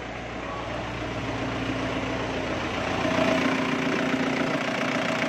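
Isuzu Crosswind engine idling steadily, growing louder about three seconds in as the microphone comes close to the engine bay.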